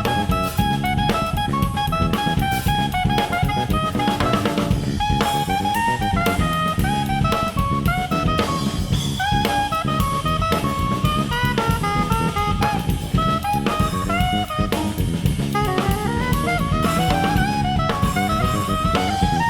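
Small jazz group of saxophone, electric bass and drum kit playing, with busy drumming on snare, bass drum and rims out front and a melodic line of stepping notes above the bass.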